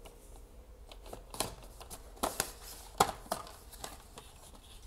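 Cardboard box being cut open with a folding knife and its lid lifted: a run of irregular sharp clicks, scrapes and rustles of cardboard, the loudest about two and three seconds in.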